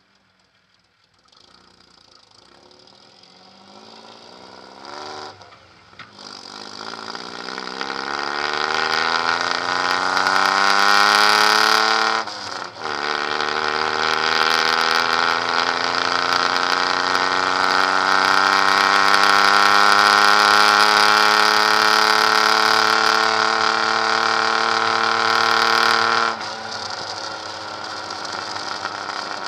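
Suzuki Samurai's four-cylinder engine through a straight-pipe exhaust, accelerating through the gears. The note climbs in pitch and breaks off briefly twice, about five and twelve seconds in, as it is shifted up, then climbs slowly and long before falling away sharply near the end as the throttle is lifted.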